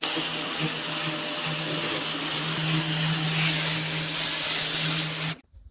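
Carpet-cleaning vacuum running steadily: a constant hum under a loud airy hiss, which cuts off suddenly near the end.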